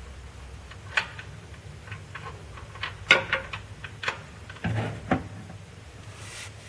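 Scattered sharp metallic clicks and taps of a hand tool against metal, as a 17 mm wrench or socket is fitted to the oil drain plug, about seven irregular clicks with a short cluster around three seconds in.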